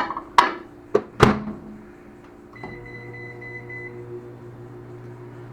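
Four sharp knocks and clicks in the first second and a half, then a held beep and a microwave oven starting up and running with a steady electrical hum.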